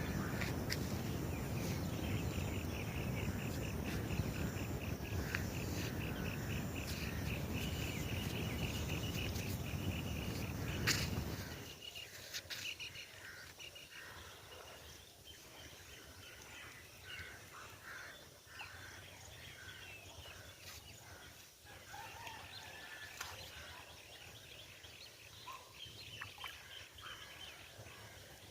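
Outdoor ambience. For about the first eleven seconds there is a loud, steady rushing noise, with a fast run of high chirps repeating over it. Then it drops suddenly to a quiet background with scattered bird chirps.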